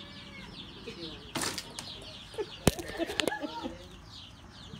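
Young raccoons chittering and twittering in high, fast chirps, with lower wavering calls in the middle. A short rustle comes about a second and a half in, and a sharp knock, the loudest sound, just after halfway.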